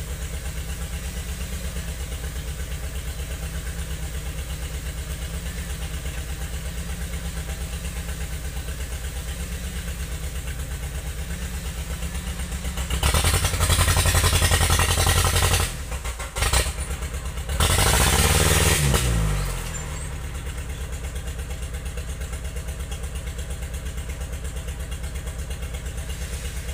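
Engine of a wheeled log-pulling machine idling with an even pulse. It is revved hard twice around the middle, and after the second burst the revs fall back to idle.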